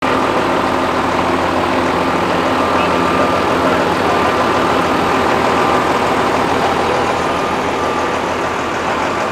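Tractor engine idling steadily, with a faint high whine over the running.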